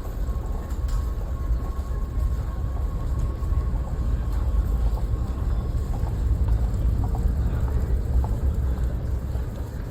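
Train rumbling along a platform, the heavy low rumble building to a peak midway and then easing off. A faint thin steady tone fades out about halfway through.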